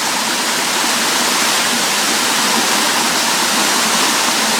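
Waterfall rushing close by: a loud, steady roar of cascading water.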